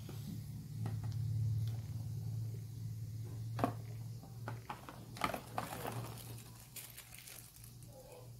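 Handling noise from unboxing a portable tyre inflator: scattered clicks and rustles of plastic packaging, the box tray and the inflator's cable being moved, ending with the crinkle of a small plastic bag of valve adapters. A steady low hum runs underneath.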